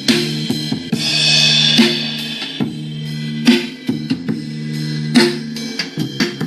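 Music: a drum kit beat with a strong hit about every second and a half, lighter hits between, over a held low bass note.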